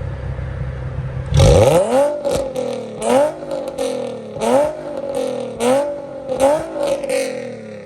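Nissan 350Z HR's VQ35HR V6 with an aftermarket exhaust, free-revved from idle. About a second and a half in it gives one sharp rev, then about five quick throttle blips, each rising and falling, before settling back toward idle near the end. Hella loud.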